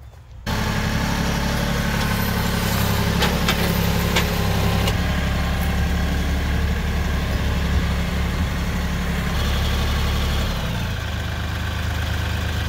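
Compact tractor engine running steadily while its front loader carries a log in a log grapple. A few short knocks come between about three and five seconds in, and the engine note drops a little near the end.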